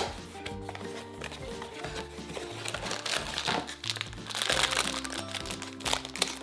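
A foil blind bag from an Avengers Mystery Minis box crinkling as it is handled and cut open with scissors, with light background music throughout. A sharp snap comes at the very start as the cardboard box flap is pulled open, and the crinkling is loudest in the second half.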